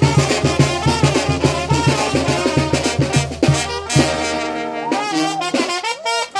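Upbeat Latin dance music led by brass, trumpets and trombones over a steady, fast bass beat. About three and a half seconds in the beat drops out, leaving held brass chords, and the music dips briefly near the end.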